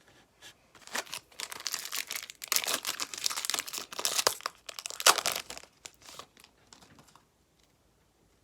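Foil wrapper of a baseball-card pack crinkling and tearing open, a dense rustle that dies away after about five seconds.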